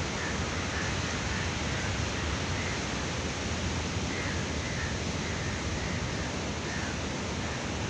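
Steady rushing noise of strong wind and rough sea surf breaking along a rocky shore.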